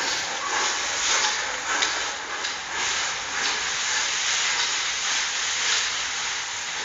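Steady hiss of background noise, with small irregular swells and faint soft knocks.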